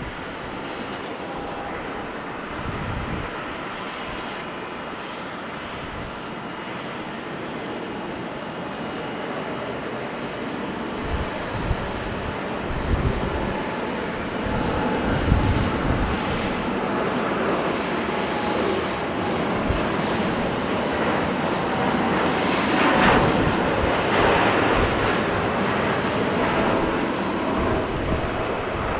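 Boeing 787-9 jet engines at takeoff power, a steady rushing noise that grows louder through the takeoff roll and is loudest a little past two-thirds of the way through.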